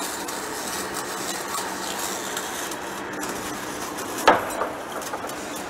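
Large lathe running, its tool cutting a big steel workpiece with a steady hiss and crackle of chips over a low machine hum. A sharp metallic clank rings out about four seconds in, followed by a smaller knock.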